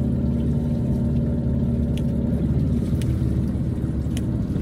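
Small boat's engine running steadily with a low, even drone, and a few faint clicks over it.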